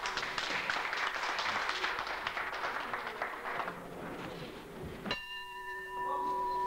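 Crowd clapping at an amateur boxing bout, heard through worn VHS tape audio. The clapping stops about five seconds in, and a steady whine of several high tones takes its place.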